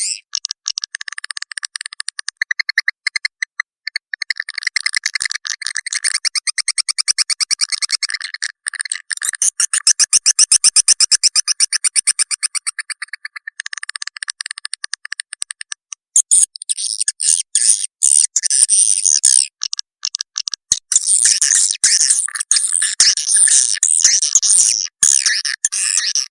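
Swiftlet lure call, the sound played to draw swiftlets into a bird house: fast trains of high twittering chirps and clicks with no low end, with brief breaks now and then.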